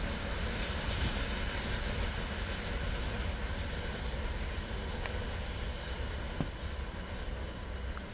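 Container wagons of a long goods train rolling past on the rails: a steady rumble of wheels, with a couple of faint sharp clicks in the second half.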